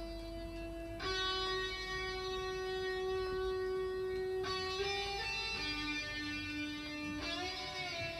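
Instrumental music played back from cassette on a restored Tandberg TCD440A deck: a slow lead melody of long held notes at steady pitch, moving to a new note about a second in and again around four and a half and five and a half seconds, with a wavering, bending note near the end.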